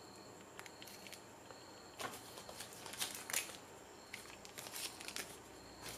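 Faint rustling and crinkling of small plastic zip bags holding coins as they are handled, with a few short crinkles about two and three seconds in.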